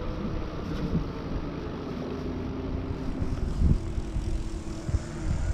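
Wind buffeting the microphone while riding an e-bike, with a steady low motor-like hum and one low bump a little past the middle.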